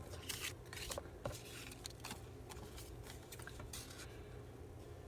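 Scissors cutting paper cardstock: a run of short, irregular snips and paper rustles, faint over a steady low hum.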